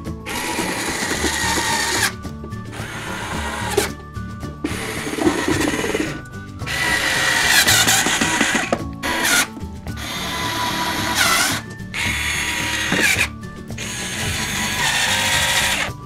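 Power drill running in repeated bursts of about one to two seconds with short pauses, its whine rising and falling, as screws are driven into the wooden dollhouse. Background music plays underneath.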